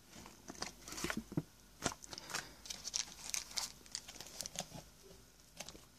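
Soft rustling and scattered light clicks of paper and packaging being handled: the warranty leaflet and pouch from a Zippo lighter's box.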